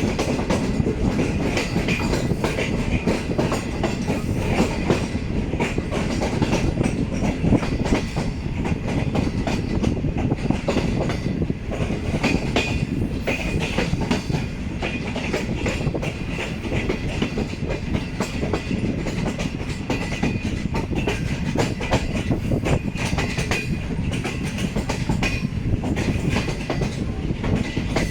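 Passenger train running on the rails: a steady rumble with the wheels clicking over the rail joints.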